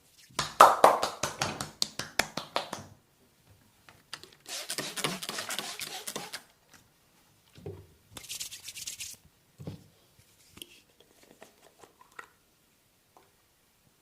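Massage on bare skin: a quick run of about fifteen sharp percussive strikes, then two spells of scratchy rubbing and a few soft knocks.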